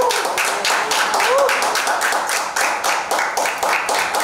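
A small group of people clapping their hands steadily, with the claps falling unevenly.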